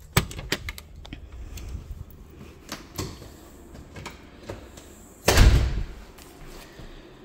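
Screen door and house door being opened, with several sharp latch and handle clicks in the first second and a few knocks after. About five seconds in comes a louder, heavy thump as a door shuts.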